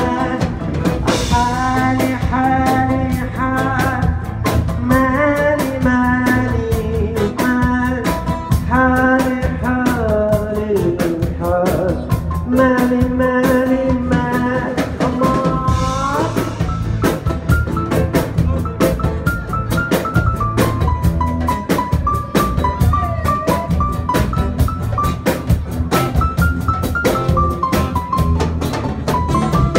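Live band music: a drum kit keeps a busy beat under acoustic guitar and keyboard, with a man singing through the first half. About halfway through the voice drops out and a single-note keyboard melody carries on over the drums.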